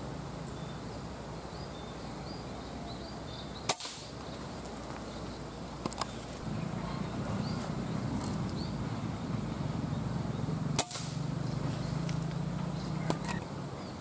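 Two sharp air-rifle shots about seven seconds apart, with a fainter click a couple of seconds after each, over a steady background hum.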